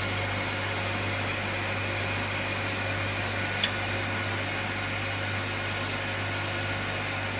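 Selective soldering machine running: a steady mechanical hum with an even hiss, with a single sharp click about three and a half seconds in.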